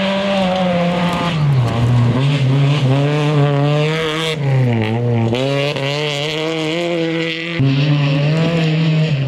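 Rally car engines revving hard, their pitch climbing and dropping again and again with the throttle and gear changes as the cars slide past. The sound breaks off abruptly and changes about four seconds in and again about seven and a half seconds in.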